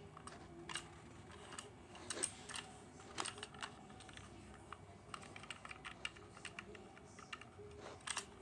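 Faint, irregular clicks and taps of a plastic toy train engine being handled.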